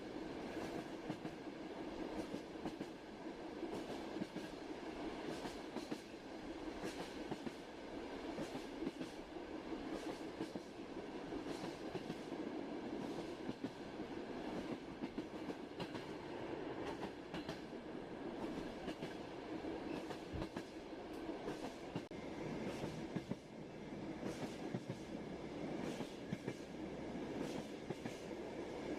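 Train running steadily on the rails: a continuous rolling rumble with the clickety-clack of the wheels over rail joints, clicks coming at uneven intervals.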